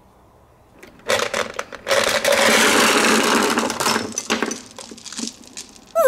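Gumballs spilling out of a plastic toy refrigerator and clattering against its plastic shelves and door tray: a rush of small rattling clicks that starts about a second in, is densest for a couple of seconds, then thins to a few last clicks.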